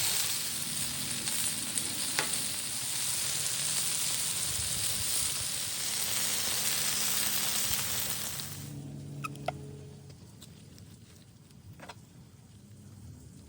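Food frying on a flat-top griddle with a loud, steady sizzle that drops away abruptly about nine seconds in, leaving a faint sizzle and a few light clicks.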